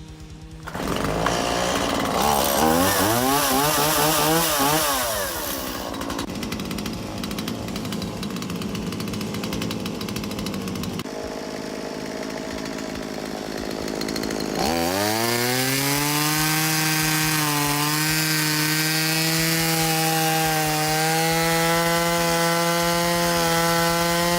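Chainsaw running. In the first few seconds its pitch swings quickly up and down, then it runs more quietly for several seconds. About 15 s in it revs up to a steady high whine.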